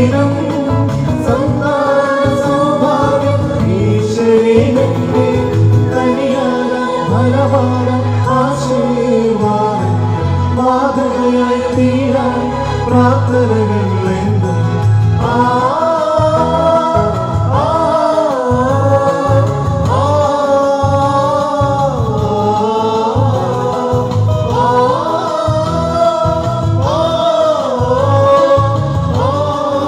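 Live song with male and female voices singing through microphones, accompanied by an electronic keyboard.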